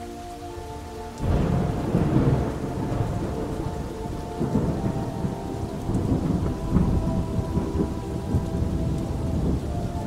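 Thunder breaks about a second in and rolls on in a long, uneven rumble over steady rain.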